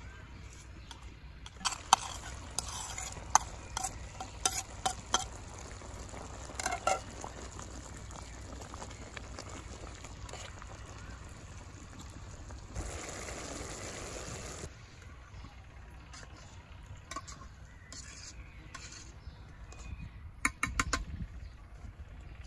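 A metal spoon stirring a chicken, dried plum and raisin stew in a pan, with sharp clinks and scrapes against the pan's sides: a run of them in the first few seconds and again near the end. Around the middle comes a hiss of about two seconds, as of the stew sizzling.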